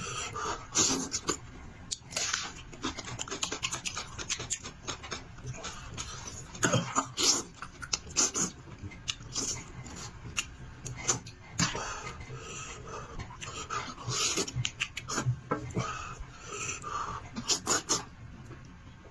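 Close-miked wet chewing, lip smacking and sucking of a person eating meat from a sheep's head, in many irregular smacks.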